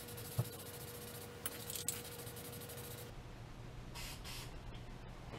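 Aerosol spray-paint can hissing in a steady stream that cuts off about three seconds in, then one short spray about a second later.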